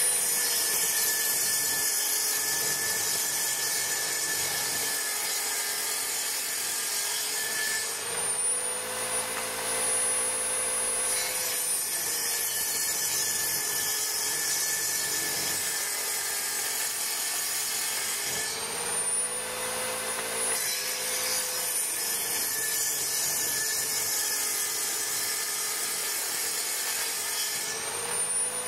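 A homemade table saw, a 160 mm circular saw blade driven by an electric drill, ripping narrow strips of chipboard in three cuts of about seven seconds each. Between the cuts the whine of the unloaded blade and drill rises back up in pitch.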